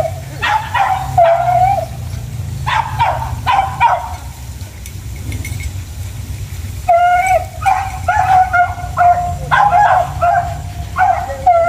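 Hunting dogs, beagles among them, yelping and baying in quick clusters of short high cries, with a pause of a couple of seconds midway, as hounds do when working a scent in cover.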